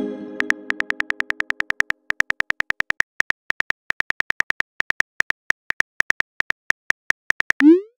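Phone keyboard typing clicks, short and regular at about six a second, as a text message is typed. At the start a message-alert chime fades out, and near the end a short rising swoosh sounds as the message is sent.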